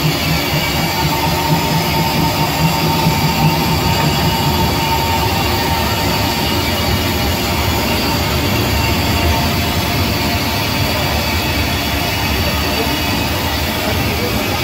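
Steam locomotive heard from inside its cab while under way: the steady, loud running noise of the engine and wheels, with a low rhythmic pulsing for the first few seconds.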